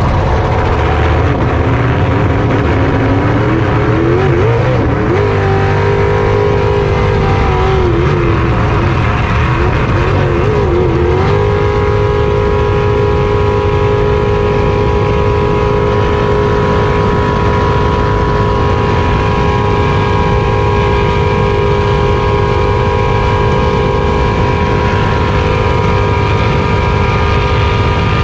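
Racing jet boat's engine running at speed over a steady low rumble of hull and water; its note rises and falls between about four and eleven seconds in, then holds steady.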